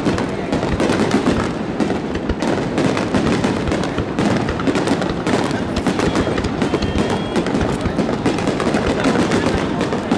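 A barrage of aerial firework shells bursting one after another, with dense crackling from the stars and no let-up.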